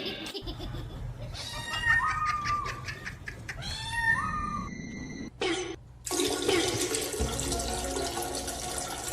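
Water rushing, starting about six seconds in, after a low rumble with a few short higher-pitched sounds.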